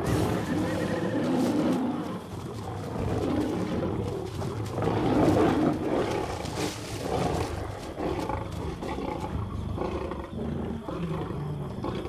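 Lions growling and snarling over a kill, squabbling over the carcass, in rough, irregular bursts with the loudest about five seconds in.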